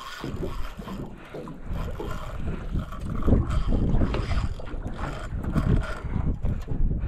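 Wind buffeting the microphone aboard a small boat on open water, an uneven rushing noise heaviest in the low range.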